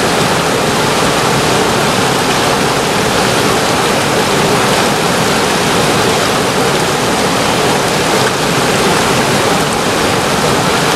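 River whitewater rapids rushing over and around boulders: a loud, steady wash of water noise that does not let up.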